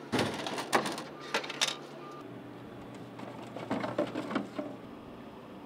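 Soda vending machine dispensing: a motor hum under a few clunks as a plastic bottle drops into the delivery bin. Then, about three and a half seconds in, a few quieter knocks and rattles as a hand pushes through the bin's flap and takes the bottle out.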